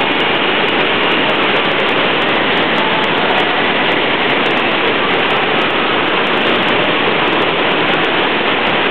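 Loud, steady rush of water from a surf simulator's sheet wave, a thin layer of fast-flowing water pumped up a padded ramp.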